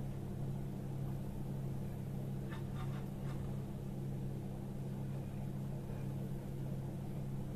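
A steady low hum, with a few faint light clicks about two and a half to three seconds in as sugar-dusted cookies are moved onto a ceramic serving plate.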